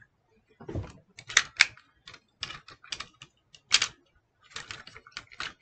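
Plastic clicks and rattles from an Optimus Prime transforming action figure being handled, its parts clicking irregularly in quick clusters as they are moved, with a soft bump about a second in.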